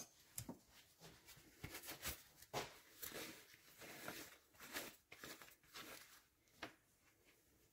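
Near silence with faint, scattered clicks and rustles of scooter engine parts being handled.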